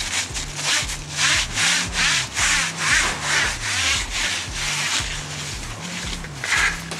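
Sanding sponge rubbed by hand up and down a tube, a rhythmic scratchy stroke about twice a second: the surface is being scuffed so that paint will hold.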